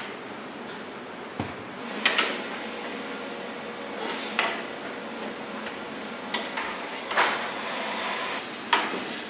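A metal ladle knocking and clinking against the rim of a stainless-steel soy-milk cooking pot, several sharp irregular strikes, while foam is skimmed off soy milk near the boil. Underneath runs a steady mechanical hum from the automatic cooker with its stirring paddle.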